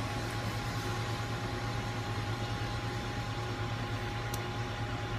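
Steady mechanical hum inside a Cessna Citation M2 cockpit with its avionics powered, a low drone with a thin steady whine above it.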